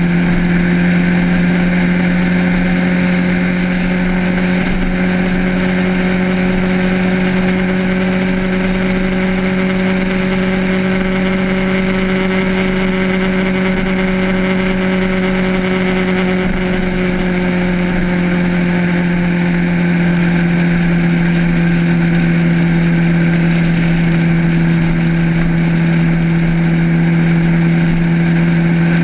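Motorcycle engine running steadily at cruising speed, a constant drone whose pitch eases slightly lower a little past the middle.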